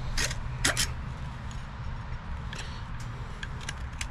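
Folding pruning saw cutting through a wooden dowel with short, gentle strokes near the end of the cut, where the wood pinches the blade: two rasping strokes about half a second apart near the start, a few fainter ones later, and a sharp click at the very end as the piece comes free. A low steady rumble runs underneath.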